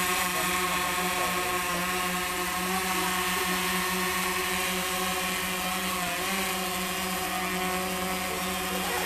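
Steady mechanical drone: a constant low hum with a hiss over it, unchanging throughout.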